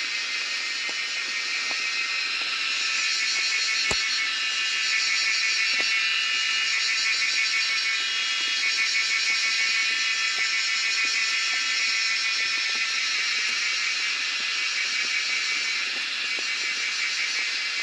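Forest insect chorus: a steady, high, shrill buzz with a fine pulsing texture. It grows louder about three seconds in and eases a little near the end, with one faint click about four seconds in.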